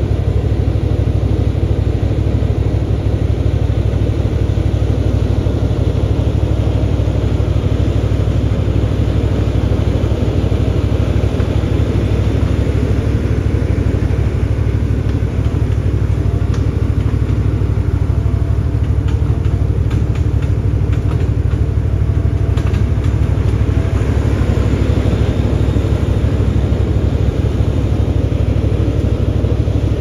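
Takeuchi TL140 compact track loader's diesel engine running steadily as the machine drives and dumps a bucket of wood chips, with some light clicks and rattles about two-thirds of the way through.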